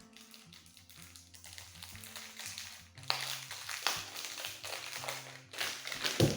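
Background music with a steady bass line; from about three seconds in, rustling and clicking handling noise, ending in a couple of heavier thumps.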